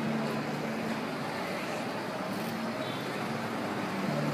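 City street traffic noise: a steady wash of passing vehicles, with low engine hum coming and going.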